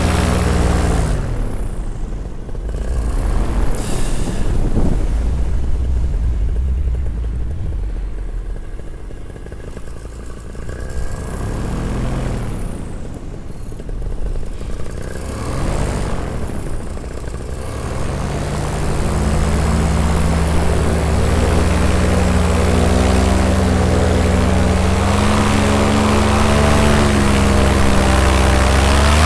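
Paramotor engine and propeller throttled back, with mostly rushing air heard for much of the time. About 18 seconds in the engine is throttled up again and runs steadily.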